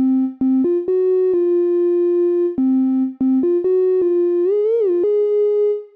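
Analog-style synth lead from the Raw Voltage Maschine expansion playing a one-note-at-a-time melody: a few quick short notes, a long held note, another quick run, then a pitch swoop up and back down near the end into a final held note. It sounds much like old analog synths.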